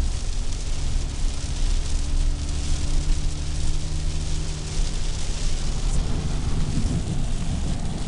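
Heavy rain hitting a car's roof and windshield, heard from inside the cabin, with a steady low hum from the car underneath.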